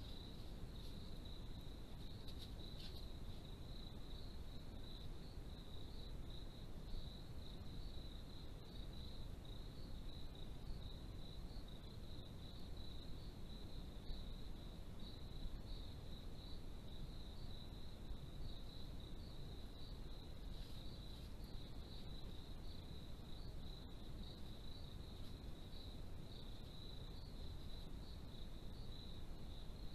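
Crickets chirping in a continuous, rapid pulsing trill, over steady low background noise.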